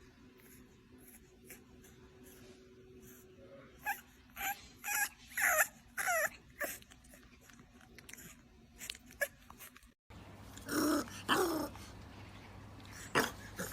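Bulldog puppy making short, pitched whines and yips, several in a row, each falling in pitch. About ten seconds in, the audio cuts to a louder pair of dog cries.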